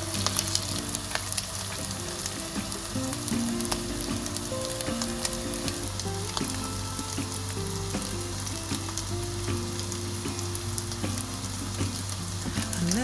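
Food sizzling and crackling in a frying pan, a dense, steady patter of small pops. Soft instrumental music plays underneath.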